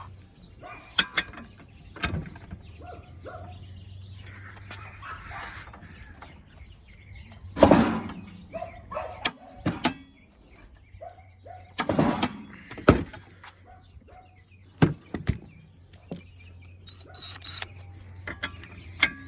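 Scattered clicks, knocks and clatter of tools being handled, with a few short louder bursts, over a faint steady hum.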